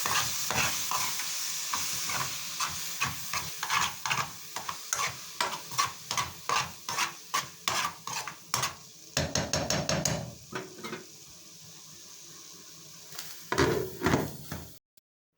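Food sizzling in a frying pan while a utensil stirs it, knocking and scraping against the pan about twice a second. The stirring stops after about nine seconds, a few louder knocks follow, and then the sound cuts off suddenly.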